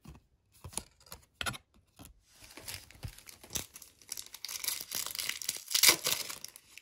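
A few light taps of cards being set down, then a foil booster pack wrapper being torn open and crinkled, with the loudest tear near the end.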